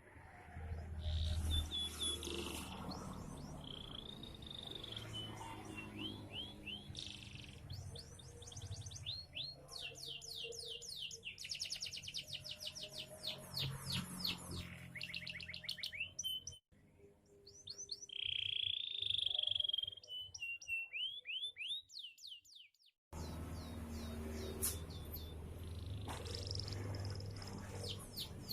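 Yellow canary singing a long song of rapid trills and rolling chirps, briefly dropping out twice in the second half, over a low steady background rumble.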